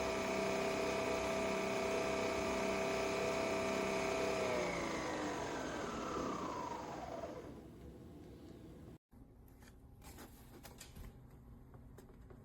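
Nespresso Vertuo Pop+ spinning the capsule in a steady, high motor whine that winds down, falling in pitch and fading over a few seconds as the brew ends. After that come a few faint clicks.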